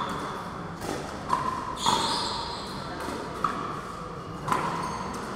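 Pickleball rally: sharp pops of paddles striking the plastic ball and the ball bouncing on the court, four in all, each echoing in a large hall, with shoes shuffling on the court between them.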